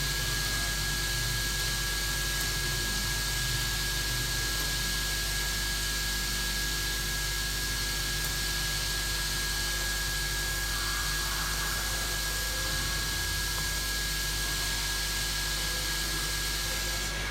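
Hot-air rework station blowing steadily with a thin high whine, its nozzle air set to 250 °C at airflow level 5 to soften the underfill glue on an iPhone board.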